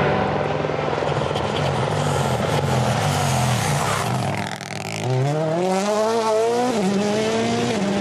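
Toyota GR Yaris Rally1 car's 1.6-litre turbocharged four-cylinder engine passing close at race speed: the revs fall as it lifts off about halfway through, then climb hard as it accelerates away, with a sharp drop in pitch about two-thirds of the way through from an upshift.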